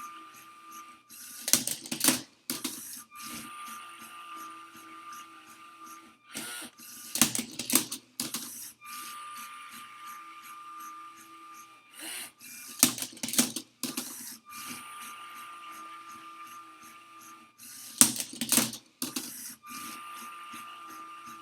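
LEGO SPIKE Prime motors of a Rubik's Cube solving robot running while it scans the cube: a steady motor whir broken by a loud plastic clatter about every five to six seconds, four times, as the mechanism turns or tips the cube.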